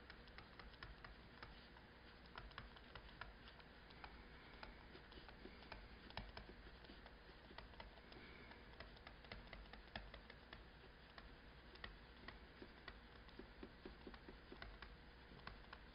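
Near silence with faint, irregular taps and clicks of a stylus on a tablet screen as block letters are handwritten.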